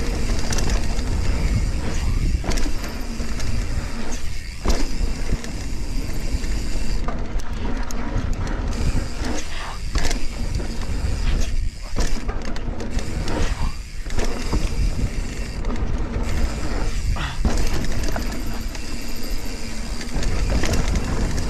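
Mountain bike riding fast down a dry dirt trail: tyres rolling over dirt and roots with frequent knocks and rattles from the bike over bumps, under a heavy rumble of wind on the microphone.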